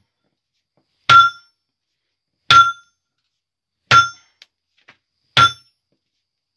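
Hammer striking red-hot steel held in tongs on a steel block, four ringing metal-on-metal blows about a second and a half apart: hand forging a hammer head from a truck axle shaft.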